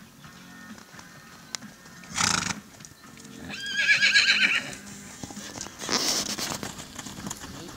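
A horse whinnies once around the middle, a quavering call lasting about a second, over soft hoofbeats on arena sand. Short rushes of noise come about two seconds in and again about six seconds in.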